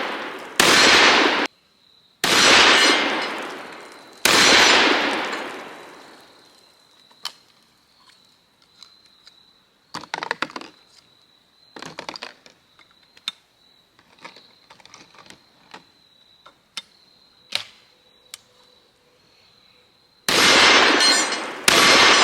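Stoeger double-barrel coach gun shotgun firing: three loud blasts in the first few seconds, each fading out over a second or two, then about ten seconds of small clicks and clacks, then two more blasts close together near the end.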